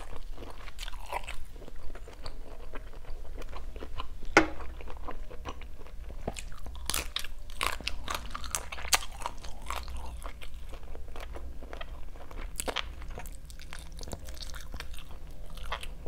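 Close-up chewing of grilled salt-and-chili shrimp: wet mouth sounds with many short crisp crunches and clicks as the shrimp is bitten and chewed.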